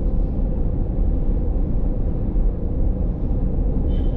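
Steady low rumble of road and engine noise heard inside the cabin of a moving minivan.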